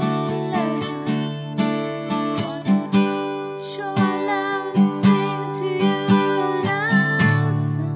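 Acoustic guitar strummed in a steady rhythm, accompanying a worship song.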